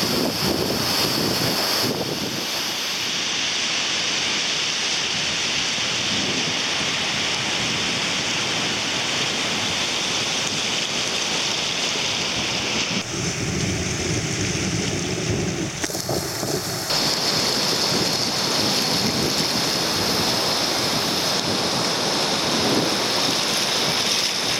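Heavy discharge of canal water rushing and churning out under the raised gates of a canal water control structure (lock S-97 on the C-23 canal), a steady rush of whitewater.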